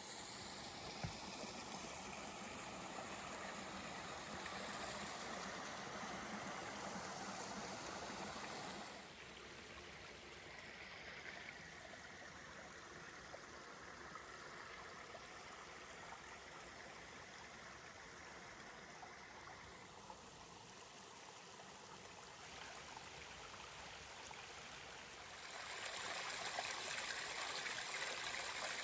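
Creek water flowing steadily. It drops abruptly to a quieter level about a third of the way in and comes back louder near the end.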